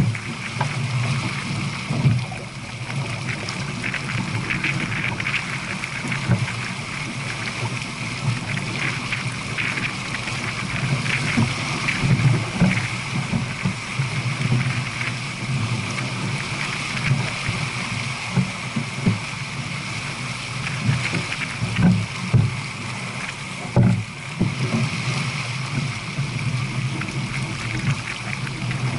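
Water rushing along a J/24 sailboat's hull and wind on the microphone as the boat sails downwind at about 7 knots, a steady noisy wash broken by irregular low thumps.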